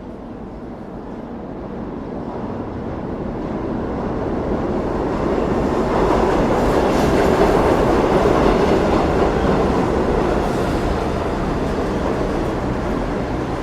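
Subway train running through an underground station, a steady rail noise that grows louder over the first half, peaks about halfway, then eases off slightly.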